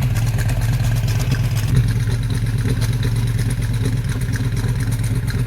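An engine idling steadily: a loud, even low drone with a fast, regular pulsing beat.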